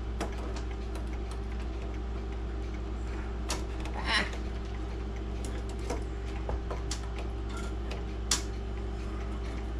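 Scattered light clicks and taps as pins are worked loose from a grandfather clock movement, at irregular moments, the clearest a little after four seconds in, over a steady low hum.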